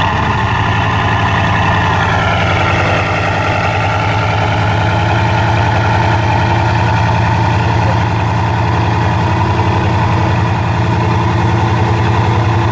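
Bugatti Veyron's quad-turbocharged W16 engine running just after a start-up, loud, its pitch easing down a little in the first few seconds and then holding a steady idle.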